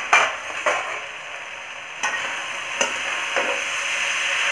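Metal spatula scraping and stirring cauliflower, potato and chickpeas in a metal kadhai, about five separate scrapes, over the steady sizzle of the vegetables frying, which grows a little louder in the second half.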